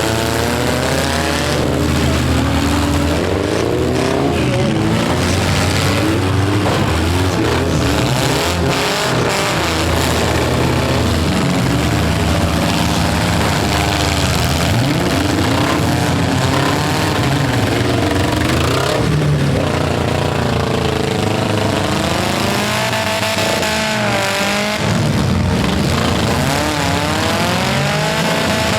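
Several four-cylinder demolition derby cars' engines revving at once, their pitches rising and falling over each other as the cars accelerate and back off.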